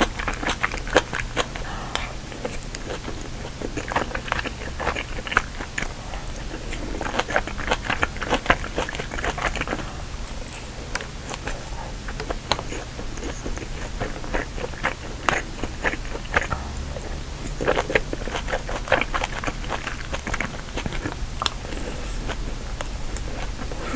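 Close-miked chewing and biting of braised kimchi stew, with irregular clusters of wet crunches and mouth clicks.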